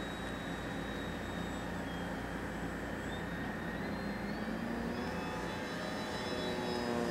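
Electric brushless motor and propeller of an RC Piper Cub model plane whining in flight. The pitch dips about two seconds in, then climbs, and the sound grows a little louder near the end as the plane comes closer.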